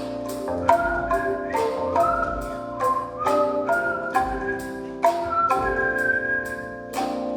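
Sundanese calung renteng, tuned bamboo slats struck in a steady pattern of about three notes a second, each note ringing on, with soft low thuds beneath.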